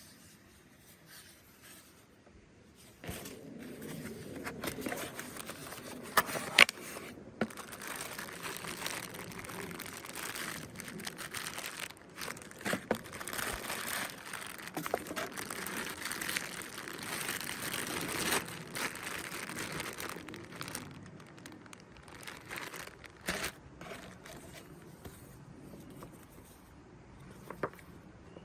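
Packaging being handled and opened: crinkling, rustling plastic and cardboard with scattered sharp knocks, busiest from about three seconds in and thinning out after about twenty seconds.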